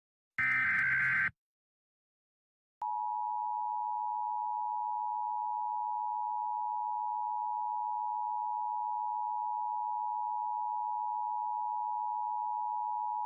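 Emergency Alert System broadcast: a short burst of the buzzy digital data header ends about a second in, and after a pause of about a second and a half the long, steady EAS attention tone begins and holds without a break.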